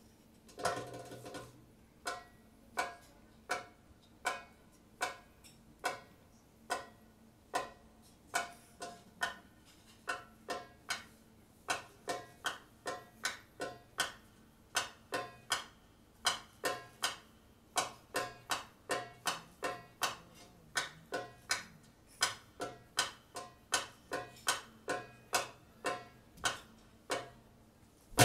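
Sparse, sharp single taps on a hand drum, evenly spaced and quickening from about one and a half a second to two or three a second, each with a brief ring.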